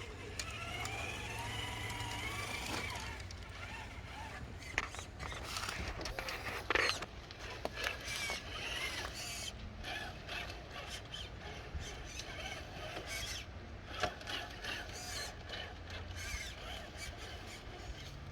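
RC rock crawler's small electric motor and geared drivetrain whining, the pitch rising and falling with the throttle, with scattered clicks and knocks as it crawls over obstacles; the loudest knock comes about seven seconds in.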